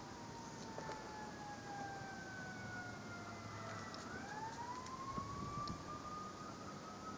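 A faint siren wailing: its pitch falls slowly, swings back up about four seconds in, and holds high near the end.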